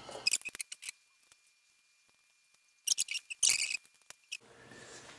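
High-pitched metallic scraping and squeaks from a screwdriver working on a Diablo disk drive spindle, adjusting the back-nut tension on its loose top bearing. The sounds come in two bursts, a short one near the start and a longer one in the middle, with quiet in between.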